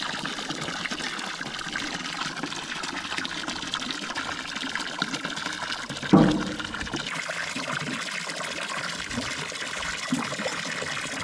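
Water running and trickling steadily, with one brief louder sound about six seconds in.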